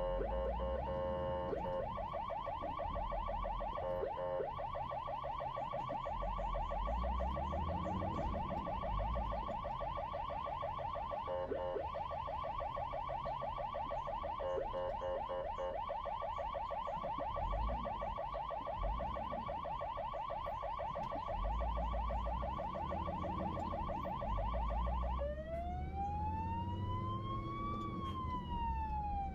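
Emergency vehicle siren on a fast, rapidly warbling yelp, switching to a slow rising-and-falling wail about 25 seconds in, over a low rumble.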